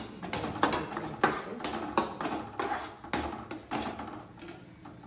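Steel spatula scraping and knocking against a stainless steel pan while stirring thick kesari, about two strokes a second, fading out near the end.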